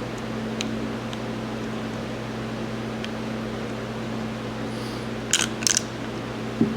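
Steady mechanical hum, like a fan running, with a few light ticks and two brief metallic clatters about five and a half seconds in, then a short knock near the end, as small hydraulic pump parts and a gasket are handled on the bench.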